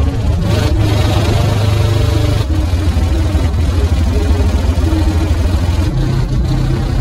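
Loud bass music played through a system of twelve Wolfram AU 12-inch subwoofers in a sixth-order enclosure, heard from outside the vehicle: deep sustained bass notes that change pitch about two and a half and six seconds in, with the rest of the music faint above them.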